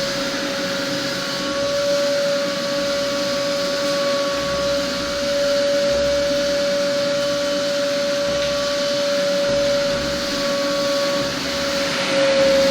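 Homemade cyclone construction vacuum running steadily: its motor gives a constant whine over the rush of air through the hose.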